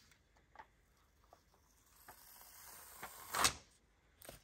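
Handling of a savings-challenge binder and its cash pages: a few soft taps, a building rustle, then one sharp clack about three and a half seconds in.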